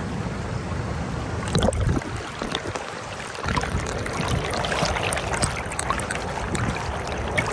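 Shallow stream rushing and splashing over rocks, a steady wash of water with small splashes throughout.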